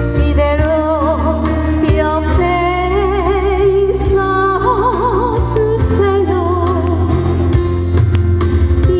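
Woman singing a ballad live into a microphone over a backing band or track, her held notes wavering with wide vibrato above steady bass and regular drum beats.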